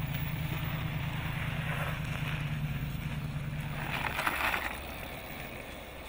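Home-built chain-drive electric motorcycle on a 72-volt battery pack riding past and away: a steady low hum with tyre noise, a brief rush of noise about four seconds in, then fading as it moves off.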